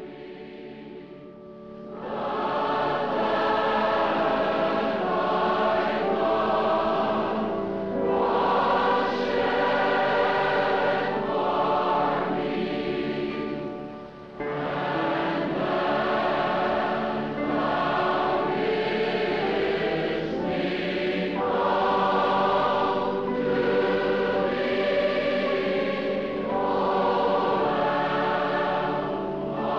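Large choir singing a hymn in long sustained phrases. It is quieter for the first couple of seconds, swells in about two seconds in, and dips briefly about fourteen seconds in before resuming.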